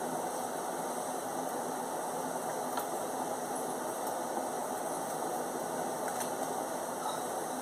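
Steady, even background noise, strongest in the low-to-middle range, with a couple of faint clicks.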